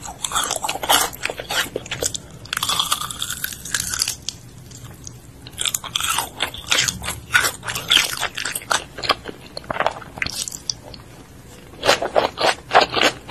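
Close-miked crunchy bites and chewing of breaded fried chicken nuggets: repeated crackling crunches, thinning out briefly in the middle, with a fresh cluster of crunches near the end.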